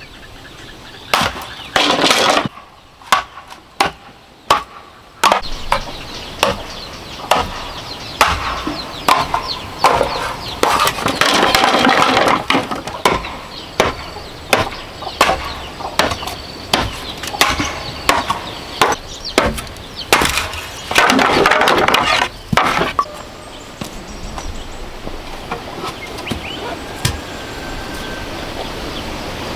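Bamboo poles being split lengthwise with a machete-like blade. Many sharp knocks of the blade striking the wood, with several longer bursts of crackling and splintering as the bamboo splits.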